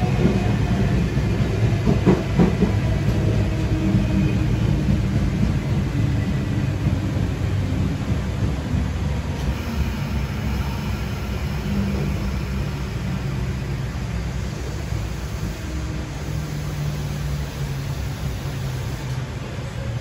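Running noise of a K-set electric multiple unit, heard inside the carriage: steady wheel-on-rail rumble from wheels carrying a flat spot, growing quieter as the train slows, with a faint motor whine that fades out and a single click about two seconds in.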